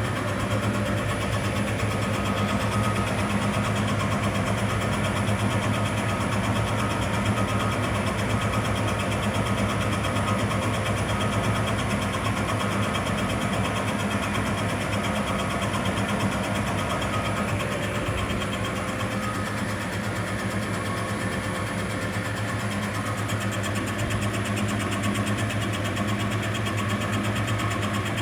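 Metal lathe running steadily while boring out a tailstock: an even machine hum with a low drone and a higher whirr. It eases a little in level partway through, then comes back up.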